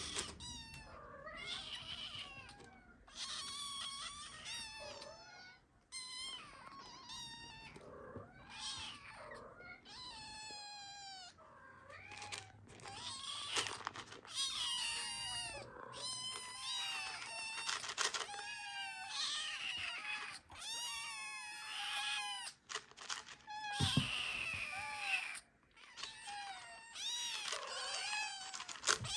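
Several kittens meowing insistently for food, a near-continuous run of high-pitched, overlapping cries with only brief pauses.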